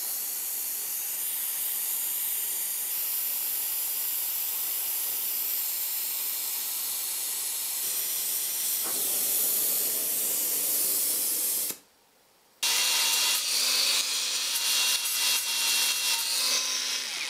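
Welding on copper parts to fill holes with weld: a steady hiss that breaks off for under a second about twelve seconds in, then resumes with a faint steady hum beneath it.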